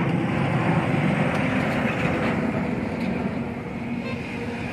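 Twin-engine jet airliner climbing away after takeoff: a steady jet engine rumble that fades slightly toward the end.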